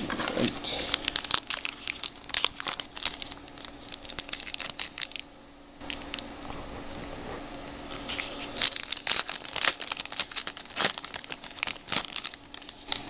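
Plastic trading-card pack wrapper crinkling and tearing as it is opened and handled, in irregular bursts with a brief lull about five seconds in.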